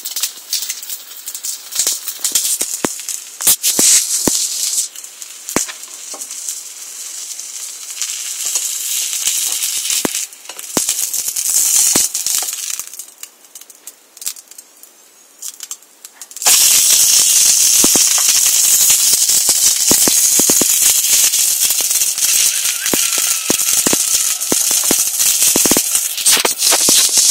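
A fried egg sizzling and crackling in oil in a Mini Trangia camping frying pan, with many small spits and pops. The sizzle turns suddenly louder and steadier a little past halfway.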